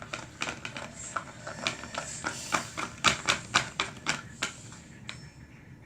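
Homemade slime being stirred in a bowl: a run of irregular sharp clicks and taps. They come fastest and loudest from about three to four and a half seconds in.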